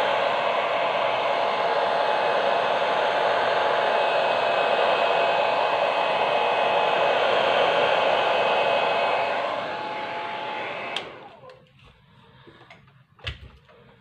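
Handheld hairdryer blowing steadily with a constant whine, blowing air over wet poured acrylic paint. It drops a little about nine and a half seconds in, then cuts off with a click about eleven seconds in, followed by a couple of faint knocks.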